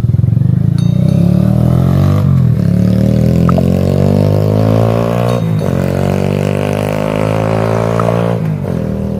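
ATV engine accelerating away through the gears: the engine note climbs steadily, drops back at three upshifts, and slowly fades as the quad bike pulls into the distance.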